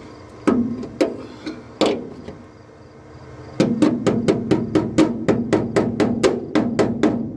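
Hammer striking the sheet-steel truck bed to straighten bent metal: three separate blows, then from about three and a half seconds in a fast, even run of about five blows a second.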